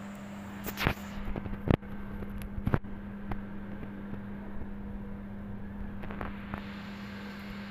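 A steady low hum, with three sharp knocks in the first three seconds and a few fainter clicks later, typical of a phone being handled and brushed against fur close to the microphone.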